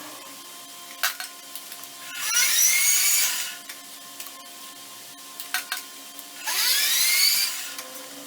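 Small power tool run in two short bursts of about a second each, its whine rising in pitch as it spins up, with a few sharp clicks in between.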